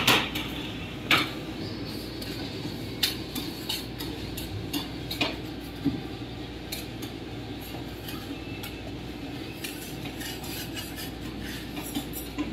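Metal scraper scraping and tapping on the steel cold plate of a rolled ice cream station as frozen ice cream is pushed up into rolls. Scattered sharp clicks and scrapes sit over a steady low hum.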